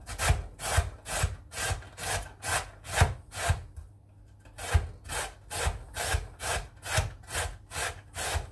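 Peeled carrot grated on a metal box grater resting on a wooden chopping board: regular rasping strokes, about two and a half a second, each with a dull thud. The strokes pause briefly about four seconds in, then carry on.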